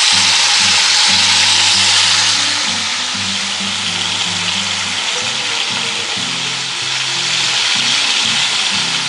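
Corned beef brisket sizzling in hot fat in a cast iron Dutch oven over charcoal, searing as the fat renders. The sizzle eases a little a couple of seconds in, with quiet background music underneath.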